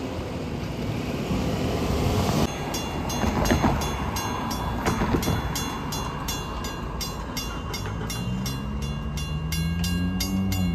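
A railroad grade-crossing warning bell starts ringing about two and a half seconds in, about three strikes a second, signalling an approaching train. Under it a Long Island Rail Road diesel train approaches, its engine rising in pitch near the end.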